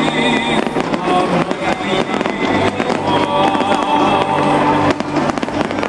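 Fireworks popping and crackling in quick, irregular succession over loud show music played through loudspeakers.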